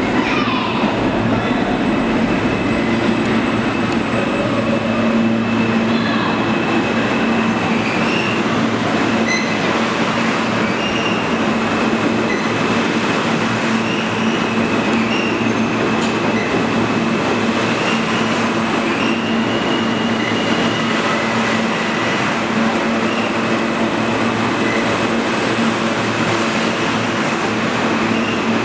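An R160 New York City Subway train pulls into the station and rolls along the platform: a loud, steady rumble of wheels and running gear, with a thin high squeal over it.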